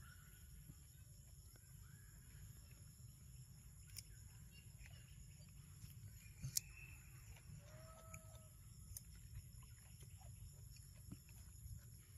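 Near silence: faint outdoor ambience with a low steady rumble, a few faint short animal calls and a handful of small sharp clicks.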